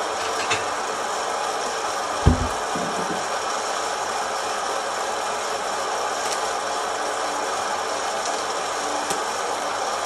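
Kaffelogic hot-air coffee roaster running, its fan blowing a steady rushing noise with the beans tumbling in the roast chamber. A single low thump about two seconds in, and a few faint sharp ticks.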